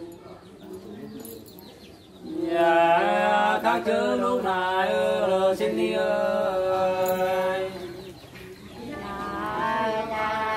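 Unaccompanied Nùng hát sli folk singing: voices sing together, holding long, wavering, drawn-out notes. Singing starts about two seconds in, dips briefly near eight seconds, then resumes.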